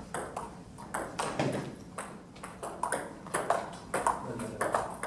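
Table tennis rally: the ball clicking back and forth off the paddles and the table, about three clicks a second, some louder than others.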